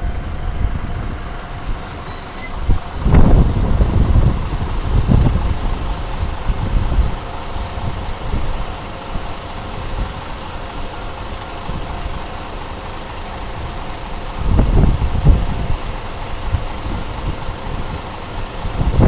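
Japanese railway level-crossing alarm ringing steadily, its electronic bell tone held throughout. Loud low rumbles swell about three seconds in and again near the end.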